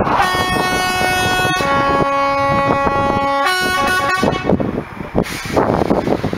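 A horn blowing a chord of several steady tones for about four seconds, the notes shifting in steps twice before it stops. Wind buffets the microphone throughout, gusting near the end.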